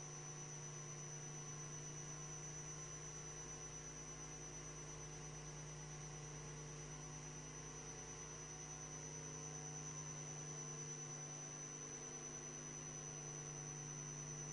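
Faint, steady electrical hum with a thin high whine above it: mains hum in the sound system, with no speech.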